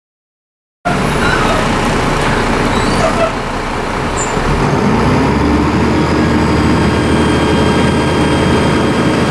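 Dennis Trident II double-decker bus's diesel engine running, with a low rumble under a steady high turbocharger whistle, starting abruptly about a second in.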